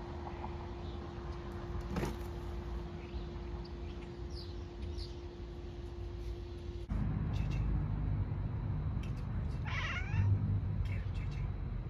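A grey domestic cat meows once, about ten seconds in: a short call that rises and falls in pitch. Before that there is a steady low hum, which stops abruptly about seven seconds in.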